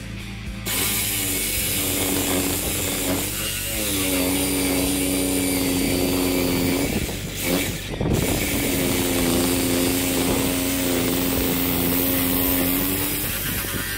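Handheld electric power tool working timber, its motor running in three long runs with two short pauses, about three and seven seconds in. Its pitch climbs as it spins up at the start of each run, then holds steady.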